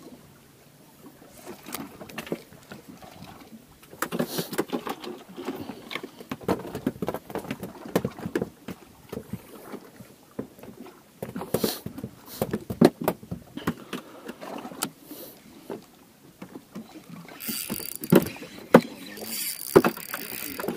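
Irregular knocks, clicks and clatter of gear being handled aboard a small fishing boat, with a brief hiss near the end.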